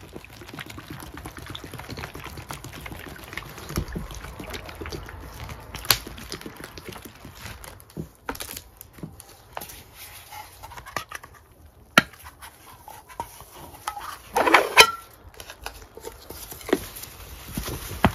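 Rubber-gloved hands squishing and kneading a wet paste of Ajax powder cleanser in a glass bowl: soft wet squelching and crackling, with a few sharp clicks and a louder squelch about three quarters through.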